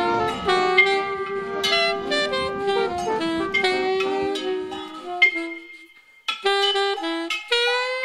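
Instrumental music: a melody over lower accompaniment, the low part falling away about five seconds in. After a short break about six seconds in, a single melody line carries on alone.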